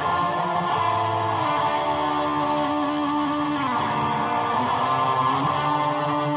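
Guitar music played through a Line 6 guitar amp's newly fitted Celestion 8-inch speaker: held, sustained notes, with a falling bend a little past halfway.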